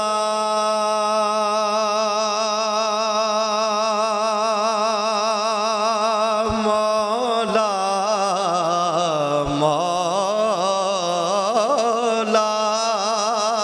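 A man singing an Urdu devotional naat through a PA system, drawing out the words in long melismatic notes with strong vibrato. He holds one long note for about the first seven seconds, then moves into a wavering, ornamented melody, over a steady low drone.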